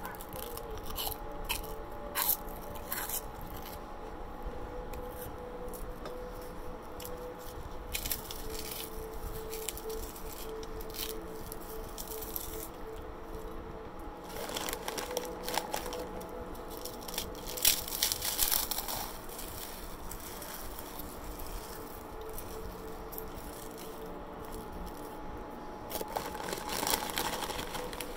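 Close-miked eating sounds: chewing with squishy and crunchy mouth noises. Now and then there are sharp clicks and scrapes of a fork against a plate, loudest about two thirds of the way in.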